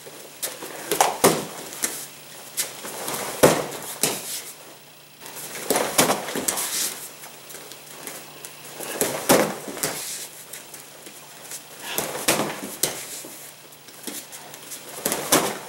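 Spinning back kicks striking a padded kicking shield: a sharp thud about every three seconds, six in all.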